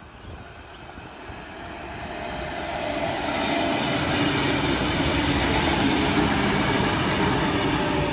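Double-deck electric passenger train running past a station platform: the rumble of wheels on rail grows louder over the first three or four seconds, then holds steady, with a steady motor whine over it.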